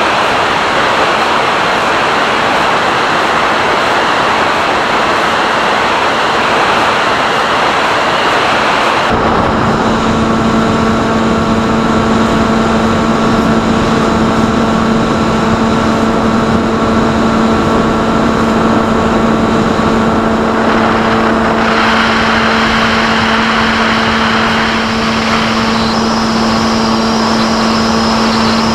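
Onboard sound of a SkyHunter FPV plane in flight. Wind rushes over the airframe at first. About nine seconds in, the steady drone of its electric pusher motor and propeller comes in and holds at an even pitch.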